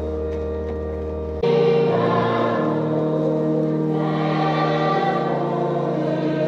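A congregation singing a hymn in chorus, coming in about a second and a half in over held accompaniment chords and getting louder.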